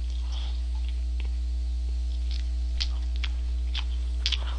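A man chewing a Double Quarter Pounder with Cheese burger close to the microphone: scattered short wet mouth clicks and smacks. Under them runs a loud, steady electrical mains hum.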